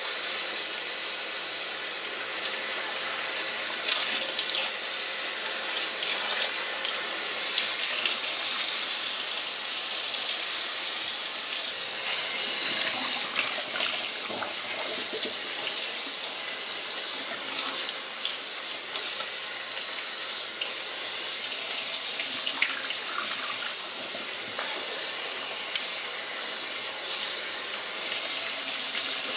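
Water running steadily from a sink tap as a wig is rinsed under it, washing the shampoo out of the hair.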